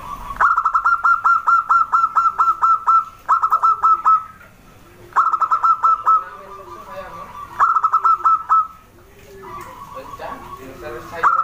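Zebra dove (perkutut) calling: rapid runs of short staccato coos in repeated phrases, the first a long run of about a dozen notes, then shorter bursts every couple of seconds.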